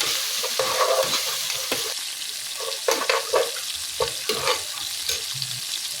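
Onions frying in hot oil in a thick-bottomed pan, a steady sizzle, with a spoon scraping and knocking against the pan several times as they are stirred.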